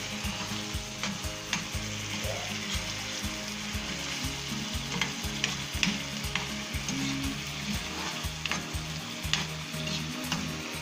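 Canned corned chicken sizzling in hot oil in a frying pan as it is stirred, with irregular clicks and scrapes of a metal spatula against the pan. It is being fried and stirred until its liquid cooks off.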